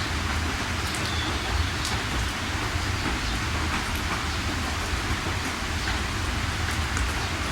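Steady heavy rain, a continuous even hiss with scattered drops ticking and a low rumble underneath.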